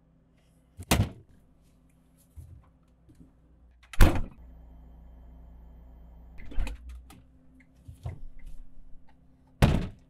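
Refrigerator door and shelf sounds: a knock about a second in, the door shutting with a thud about four seconds in, then a low steady hum. Further knocks follow, and another thud comes near the end as the door is opened again.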